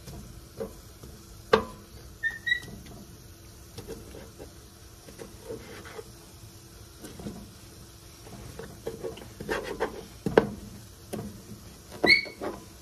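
A utensil clicking and scraping on a nonstick electric griddle while sautéed onions, peppers, mushrooms and roast beef are pushed around and divided, with one sharp knock about a second and a half in. A young dog gives short high whines about two seconds in and again near the end.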